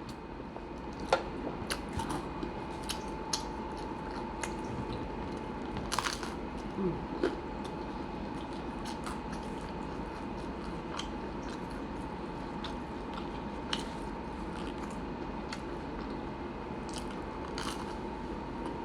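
A person chewing and biting into a cold-cut sandwich close to the microphone: scattered short wet clicks and crunches, a stronger one about six seconds in, over a steady background hum.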